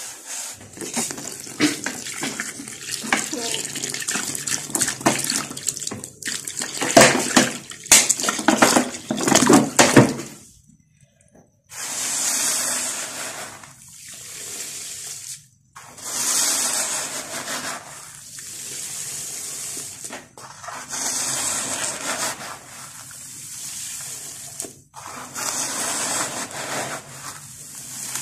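Dry, gritty dirt crumbling between fingers, a dense run of crackles for about ten seconds. After a short pause, fine dry dirt pours from the hand into a bowl of muddy water in four long streams of three to four seconds, each a steady hiss like running water.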